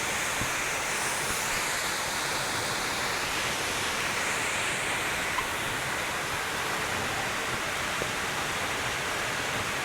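Steady rush of a waterfall, an even wash of water noise that does not change, with a few faint ticks.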